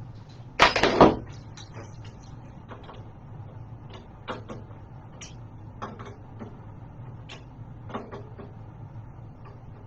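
Hand tools being handled while the handlebar clamp bolts are tightened: a loud clatter about half a second in, then scattered light clicks and ticks.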